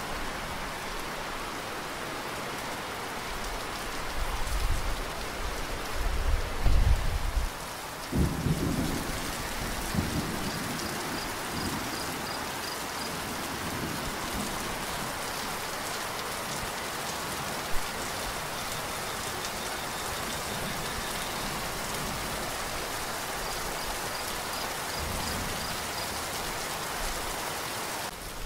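Steady heavy rain with thunder: deep rolling rumbles swell in from about four seconds in and die away by about eleven seconds in, after which the rain carries on alone.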